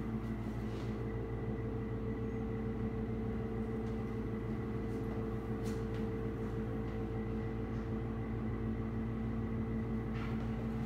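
Steady mechanical hum of a running fan, holding one even pitch throughout, with a few faint clicks.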